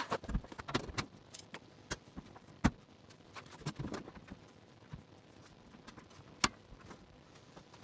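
Sparse light clicks and metallic knocks, about one or two a second with a sharper knock near the middle, from hand work on a car body panel.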